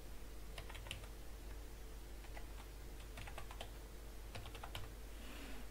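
Faint, irregular keystrokes on a computer keyboard, typing out an email address.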